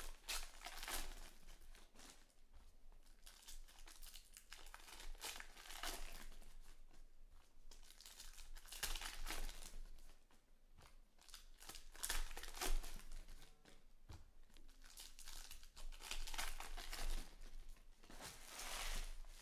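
Foil wrappers of 2020 Panini Select baseball card packs crinkling and tearing as the packs are ripped open by hand, in repeated spells of rustling.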